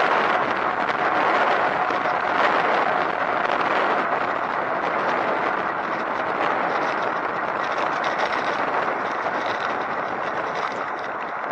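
Steady rushing noise of a recumbent cycle in motion: tyres on the road and air rushing past, a little quieter in the second half.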